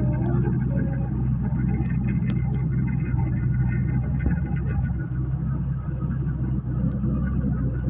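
Tractor engine running steadily at an even speed, a constant low hum.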